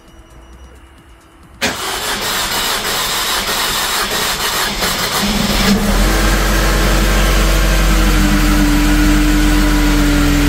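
Mercedes-Benz M271 Kompressor four-cylinder engine starting for the first time after a timing chain kit replacement. It starts up suddenly about one and a half seconds in and settles into a steady idle about six seconds in.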